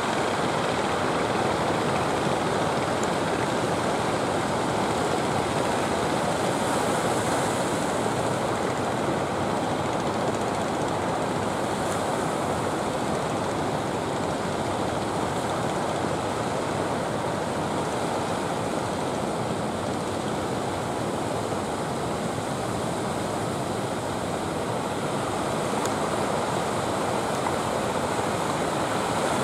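Steady rush of sea surf, waves breaking on the shore.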